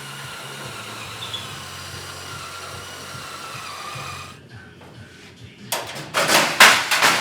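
A power tool's motor whines steadily, sagging slightly in pitch before it stops about four seconds in. Near the end come several loud, rough noisy bursts.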